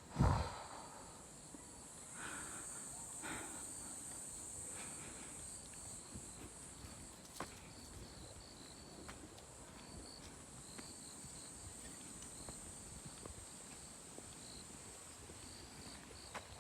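Insects chirping on a wooded hillside: a steady high trill with short repeated chirps, over faint scattered footsteps in dry leaves. A single dull thump sounds right at the start.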